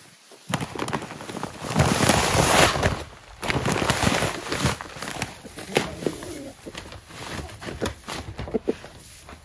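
Backyard chickens clucking and cooing softly, over loud rustling noise that is heaviest about two seconds in, with scattered light knocks.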